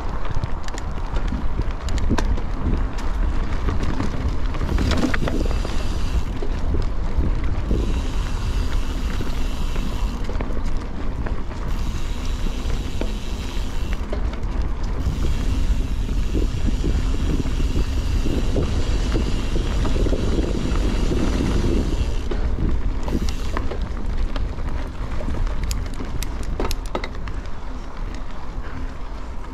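Wind buffeting an action camera's microphone on a moving bicycle, a steady low rumble with frequent clicks and rattles from the bike over the ground.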